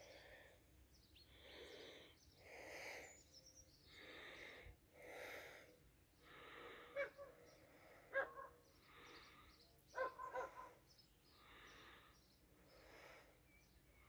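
Faint, even breathing of a person, a soft breath about every second. There are a few short sharp clicks about halfway through.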